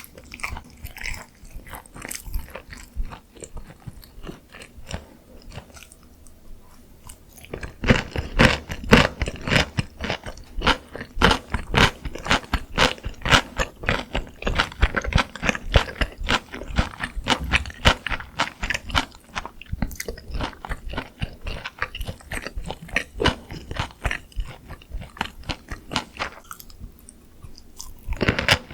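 Close-miked crunching and chewing of glazed Korean fried chicken (dakgangjeong), the crisp coating cracking between the teeth. It is quieter for a moment, then a fresh, louder run of crunching starts about eight seconds in.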